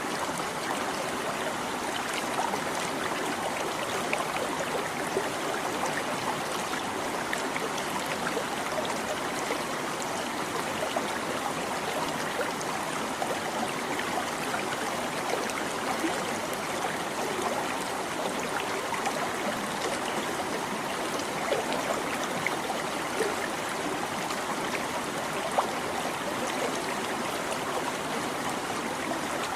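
Shallow stream babbling steadily over stones, with many small splashes and gurgles.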